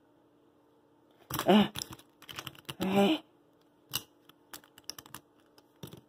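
Plastic Rubik's cube pieces clicking and clattering as they are handled and pulled apart, with two louder squeaky, rattling bursts about one and a half and three seconds in, over a faint steady hum.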